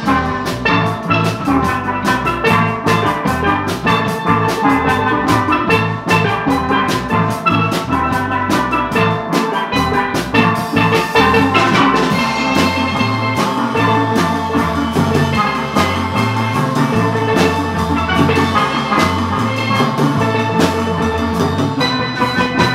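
Steel band playing live: several steel pans struck with mallets over an electric bass guitar and a drum kit, one continuous tune.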